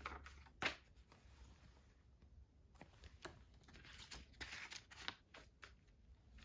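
Faint rustles and flicks of paper as the pages of a softcover collector's book are turned by hand, the sharpest flick about half a second in and a softer cluster of rustling about four seconds in.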